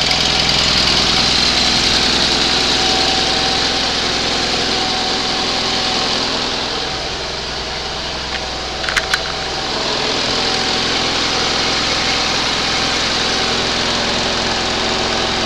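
Rebuilt 20 HP Onan engine of a 1978 Roper 20T garden tractor running steadily on its first start after the rebuild. A few sharp clicks come about nine seconds in.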